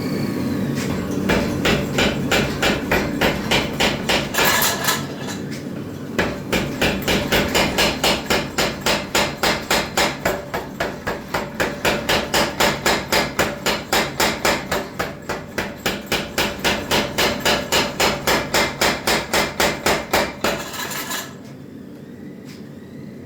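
50 lb power hammer striking hot steel in rapid, evenly spaced blows, about four a second. There is a short break a few seconds in, then the hammer runs steadily again until it stops near the end.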